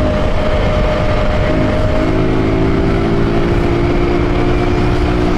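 Honda Titan 150 single-cylinder motorcycle engine, carbureted and running without its air filter or intake hose, held at a steady speed under a heavy rush of noise.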